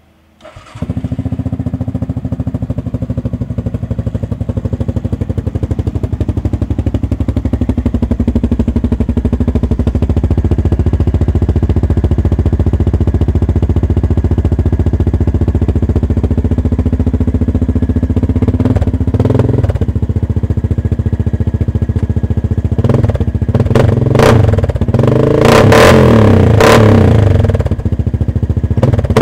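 2007 Yamaha Grizzly 700 ATV's single-cylinder engine, breathing through an HMF Performance slip-on exhaust, starting about half a second in and idling steadily. It is blipped once about two-thirds through, then revved in several short throttle blips near the end.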